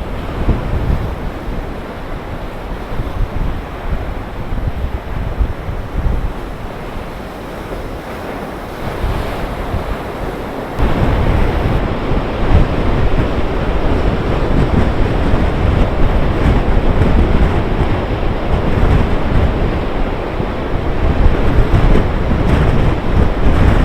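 Big storm waves breaking and surging on the shore in a gale, with strong wind buffeting the microphone. The loud, steady roar steps up sharply about eleven seconds in and stays louder.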